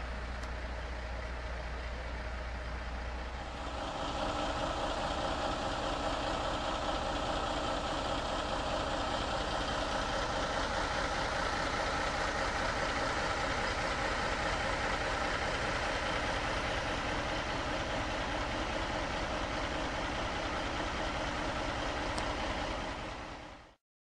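Heavy truck engine idling steadily, stepping up louder about three and a half seconds in and cutting off abruptly near the end.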